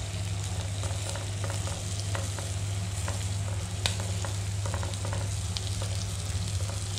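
Marinated chicken pieces sizzling in a nonstick frying pan, with scattered small crackles and pops as butter is dabbed onto them and melts. A steady low hum runs underneath.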